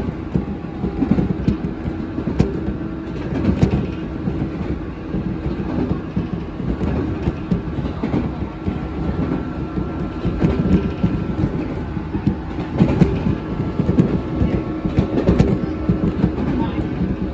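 Train heard from inside a passenger car while running: a steady rumble of wheels on rail with a faint even hum, broken by irregular sharp clacks as the wheels pass over rail joints.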